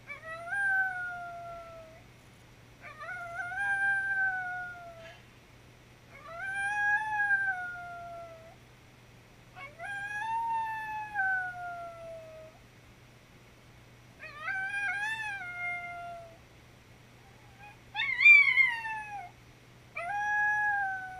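A dog howling: seven drawn-out howls, each rising and then falling in pitch, with short pauses between them. The loudest howl comes near the end.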